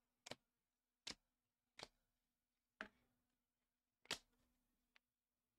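Faint, sharp clicks of trading cards being flipped through in hand, six of them at uneven intervals, the loudest about four seconds in and a small tick near the end.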